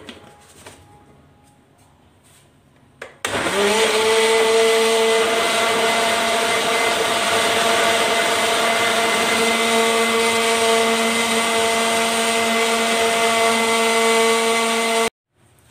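Electric blender motor blending a chocolate milkshake. After a few faint clicks, it starts about three seconds in, spins up quickly and runs at a steady whine, then cuts off suddenly near the end.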